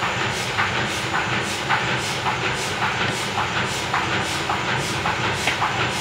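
A machine running steadily with an even, rhythmic clatter of about three clacks a second over a constant hum, typical of an offset printing press at work in the shop.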